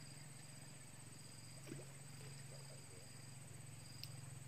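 Faint riverside ambience: insects trilling steadily at a high pitch, with a low steady hum underneath and two faint clicks, one in the middle and one near the end.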